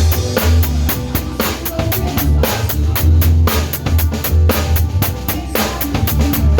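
Drum kit playing a steady beat with bass drum, snare and cymbals, over a pop band backing with a bass line.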